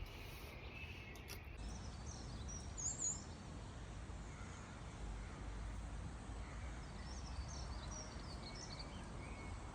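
Outdoor ambience: a steady low rumble with birds chirping in short high calls, a cluster about two to three seconds in and another near the end.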